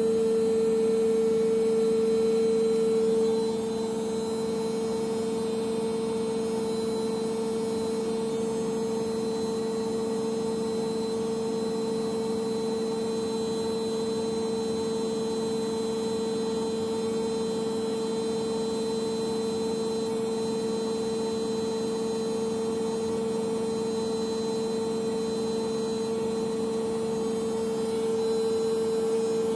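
Samsung Ecobubble WW80J5355MW front-loading washing machine spinning on its 1200 rpm spin-only cycle, a steady motor and drum hum at constant speed. About three seconds in the pitch mix shifts slightly and the sound gets a little quieter.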